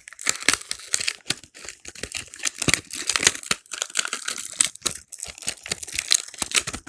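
Packaging being crinkled and torn open by hand in rapid, irregular crackles, as a small infinity cube fidget toy is unwrapped.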